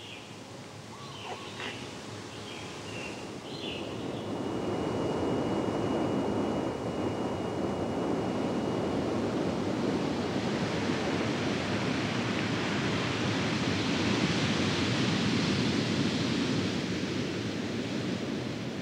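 Heavy ocean surf breaking. The noise of the waves swells up over the first five seconds and then holds. A few bird chirps sound near the start.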